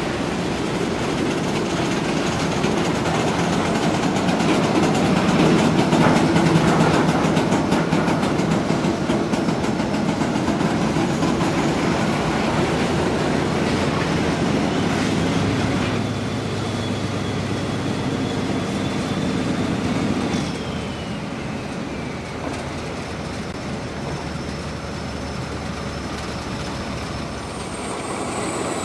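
HO-scale model trains running on the track: a steady rumble of small electric motors and wheels over the rails, loudest about six seconds in and falling back in steps later on, with a faint high whine gliding in pitch near the middle.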